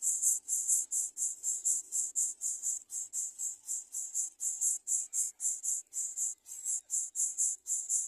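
Insect chirping steadily in a rapid, even rhythm of high-pitched pulses, about five a second.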